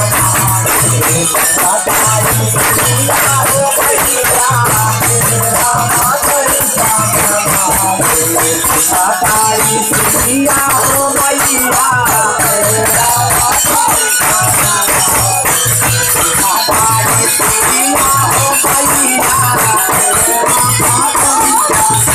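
Live chaita folk song: a singing voice over a steady, fast jingling percussion rhythm, played loud.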